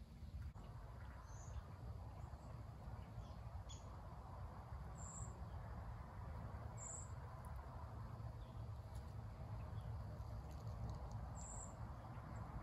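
Faint outdoor ambience: a low steady rush that swells slightly toward the end, with a few short, high chirps scattered through it.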